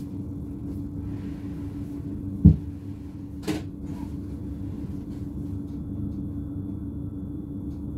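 Steady low hum of a standing BLS RABe 515 (Stadler KISS) electric multiple unit heard from its driver's cab, with one sharp thump about two and a half seconds in and a lighter knock a second later.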